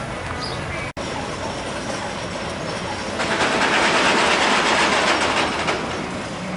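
Wooden roller coaster train clattering over its wooden track as it passes. It grows loud about three seconds in, then fades near the end.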